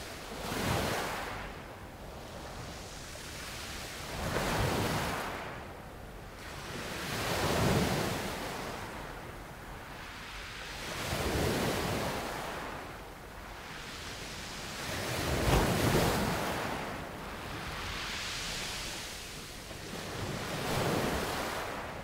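Sea waves breaking and washing on a shore, about six surges that swell and fade every three to four seconds, with a steady hiss between them.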